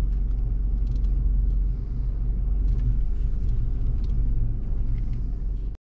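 Steady low rumble of a car, heard from inside the cabin. It cuts off suddenly near the end.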